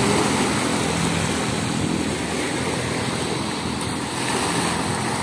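Sea surf washing onto a beach, a steady rushing noise.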